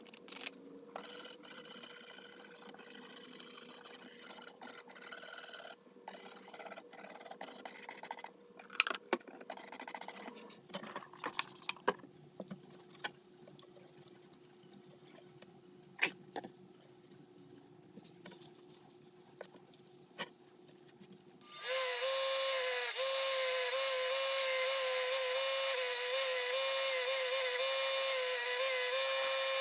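Rubbing and scrubbing on a rusty table saw blade, with scattered sharp clicks and knocks. About two-thirds of the way through, a small electric power tool starts and runs steadily with a wavering whine, louder than the scrubbing.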